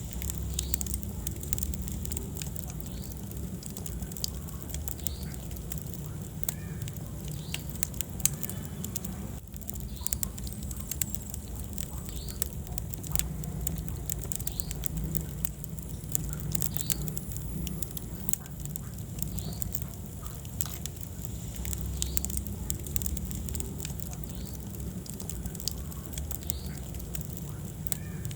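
Wood fire burning in a fireplace, crackling with many small irregular pops over a steady low rumble of the flames, with one louder pop about eight seconds in.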